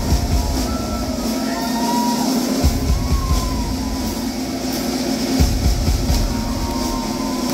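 Live funk band playing a slow, spacey passage: a sustained low drone with deep bass swells that come in about every three seconds, and sliding, wavering lead lines on top.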